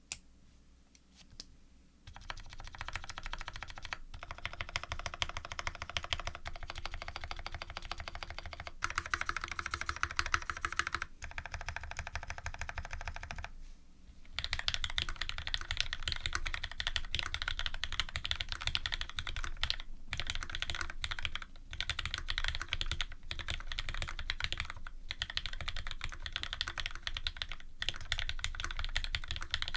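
Custom mechanical keyboard being typed on fast: a Special Dolphin with an aluminium plate, lubed Cherry Retooled Black linear switches and GMK keycaps. A few single keystrokes come first, then continuous rapid typing starts about two seconds in. It breaks off briefly about halfway through, then goes on.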